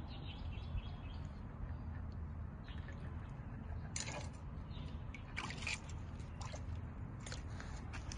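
Water sloshing with a few short splashes, about four, five and a half and seven seconds in, as a jointed swimbait lure is drawn through the water, over a steady low rumble.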